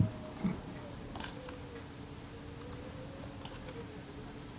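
Light clicks and taps of small tools and shutter parts being handled at a workbench while graphite powder is dropped onto the mechanism plate, with a soft knock at the start and another about half a second in. A faint wavering hum sits under it.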